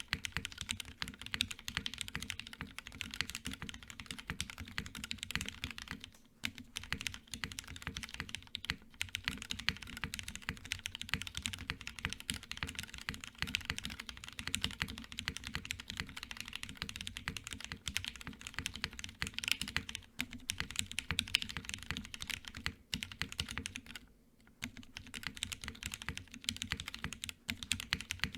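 Fast, continuous typing on a plateless, PCB-mounted mechanical keyboard with Gateron Giants switches and GMK keycaps. It pauses briefly twice, about six seconds in and again near the end.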